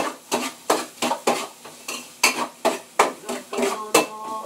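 Metal utensil stirring and striking against a wok in a run of about a dozen clanks and scrapes, roughly three a second, as onions and garlic are sautéed.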